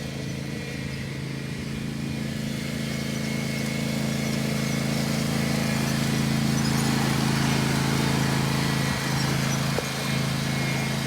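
Riding lawn mower engine running at a steady pitch, getting louder over the first half or so and then holding level.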